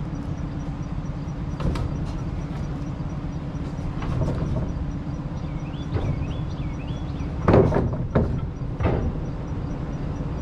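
Engine running steadily while a tractor loader lays a length of corrugated plastic culvert pipe onto a wooden flatbed trailer deck, with a few loud knocks toward the end as the pipe comes down on the boards.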